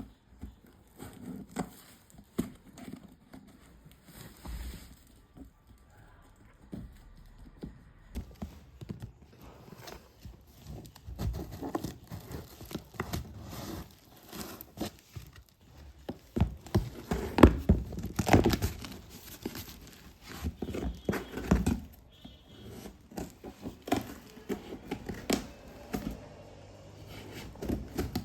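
Laptop packaging being handled and opened: rustling, crinkling and tearing with many small clicks and knocks, busiest and loudest about two-thirds of the way through.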